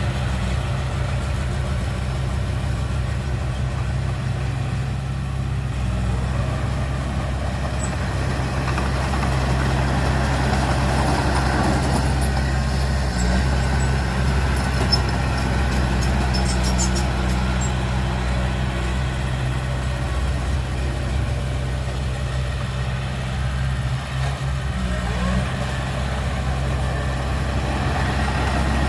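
Heavy diesel engine of earthmoving equipment running steadily at an even low pitch, with faint light ticks in the middle.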